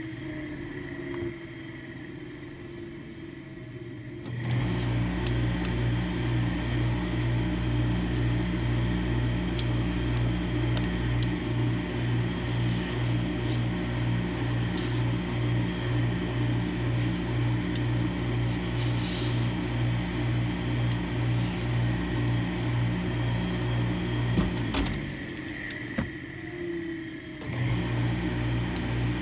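Steam pressing equipment at a tailor's ironing station, with a hose-fed steam iron, running with a low electric hum that pulses on and off in a fast, even rhythm. It starts a few seconds in, stops for a few seconds near the end, then resumes.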